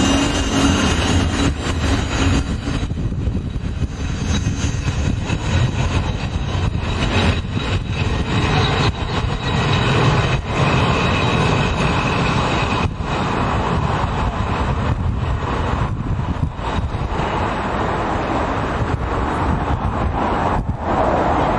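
FS ALe642 electric multiple unit with its Le682 trailer pulling out and running away down the line: electric traction and wheels on the rails, with a few thin whining tones in the first seconds. A steady low rumble of wind on the microphone runs underneath and stays after the train has gone.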